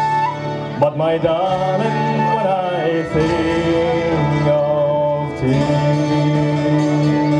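Live folk band playing: fiddle, guitar and a frame drum, with a voice singing a melody over them.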